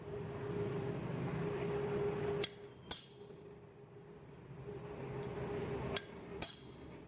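Hammer striking a cold chisel held on a steel plate on an anvil, four sharp metallic clinks in two pairs, each pair half a second apart and the pairs about three seconds apart. A steady low hum runs underneath.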